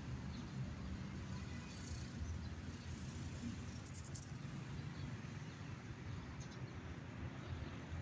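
Quiet outdoor background: a steady low rumble on the microphone, with a few faint, short high ticks, the clearest about four seconds in.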